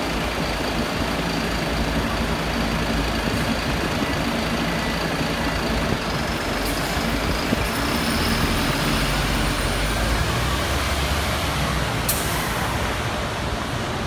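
Mercedes-Benz O405G articulated diesel bus idling steadily at a standstill. About twelve seconds in there is a short burst of air hiss.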